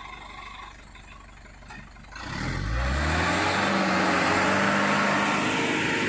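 Light truck's diesel engine revving up sharply about two seconds in and held at high revs, laboring as the truck pushes through deep mud.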